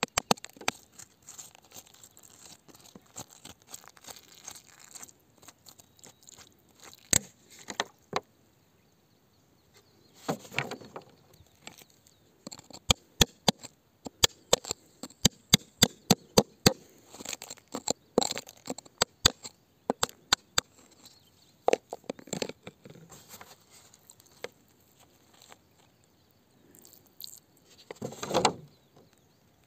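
A pointed tool scraping and picking at gritty, crumbly rock and soil: a scattered run of sharp clicks and crunches, with a few longer scrapes, the loudest near the end.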